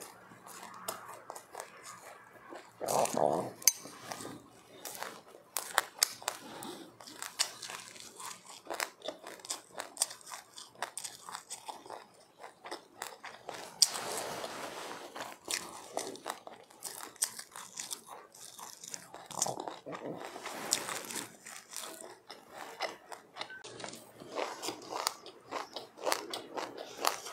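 Close-up eating: sesame seeds with passionfruit crunched and chewed, a steady stream of small crisp crackles. There are louder stretches of chewing about three seconds in, around the middle, and again about two-thirds of the way through.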